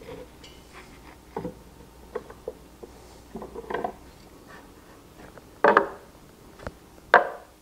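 Pipe clamps handled and tightened across a freshly glued wooden panel on a workbench: scattered knocks and clicks of the clamp jaws, iron pipes and wood, with two louder knocks near the end.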